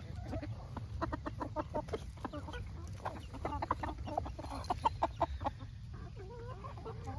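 A flock of chickens pecking and tearing at napa cabbage leaves: a quick, irregular run of crisp pecking clicks, with short clucks now and then.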